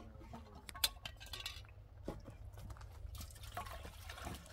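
A couple of sharp clinks as a kettle is handled, then, about three seconds in, water pouring from a plastic jerrycan into the kettle.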